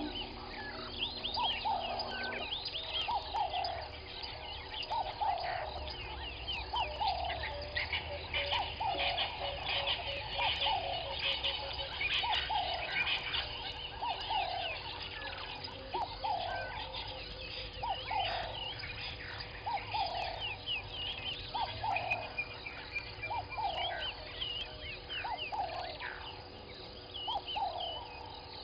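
Ring-necked doves (Cape turtle doves) cooing, one low phrase repeated steadily about once every second or so. Behind them is a chorus of higher chirping from other birds.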